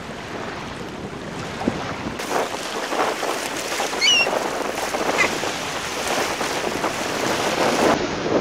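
Wind buffeting the microphone over small waves lapping on the shore. Two short high chirps sound about four and five seconds in.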